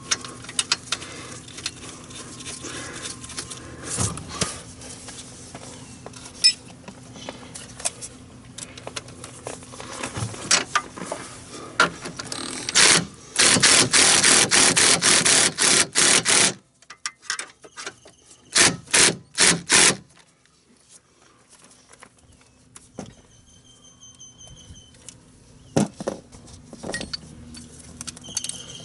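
Compact cordless impact wrench hammering a nut onto the leaf spring eye bolt for about three seconds, then a few short bursts to snug it. Before it, small clicks and scrapes of the nut and tools being handled.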